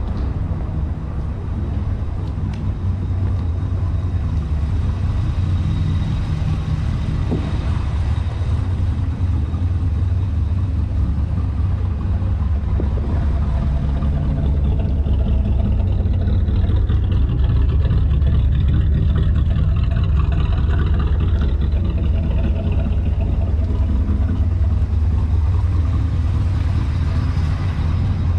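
Pontiac Trans Am V8 engine running with a deep, steady exhaust rumble, getting a little louder about halfway through.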